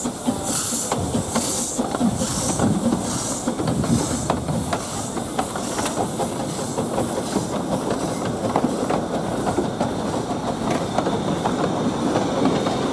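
Heywood 0-4-0 tank steam locomotive 'Katie' pulling away with its train: hissing steam chuffs about once a second that fade after four seconds or so. Then the coaches roll past with the wheels clicking on the track.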